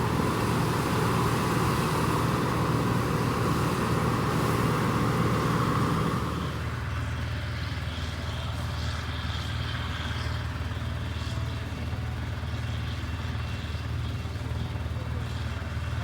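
New Holland Clayson 8070 combine harvester's Mercedes V6 engine running steadily, with loud machinery noise on top; about six seconds in the noise drops away and the engine runs on more quietly.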